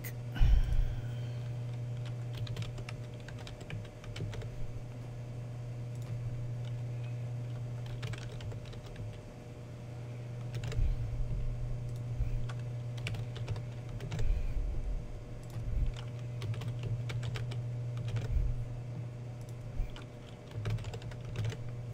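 Computer keyboard typing: keys clicking in short irregular bursts, over a steady low hum.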